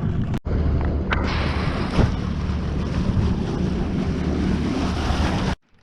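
Strong gale-force wind buffeting the microphone on an open boat, a steady loud rushing with heavy low rumble. It breaks off briefly near the start and stops abruptly near the end.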